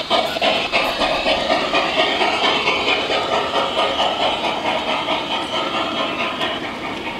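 G scale model steam locomotive chuffing steadily at about three beats a second over a constant hiss, growing slightly fainter as it pulls its passenger cars away.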